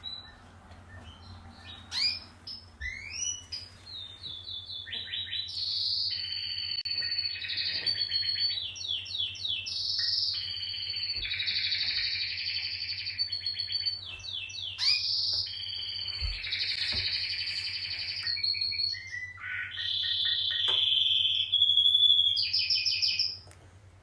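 Canary singing a long song of rapid trills, buzzy rolls and clear whistled notes, starting with a few scattered chirps and running almost without pause from about five seconds in, stopping just before the end. A faint steady low hum lies underneath.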